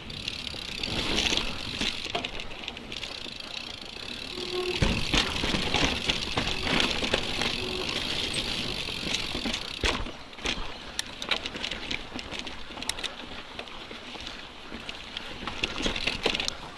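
Mountain bike rolling down a rocky dirt trail: steady tyre and drivetrain noise, with the chain and frame rattling. In the second half there are many sharp knocks as it goes over bumps.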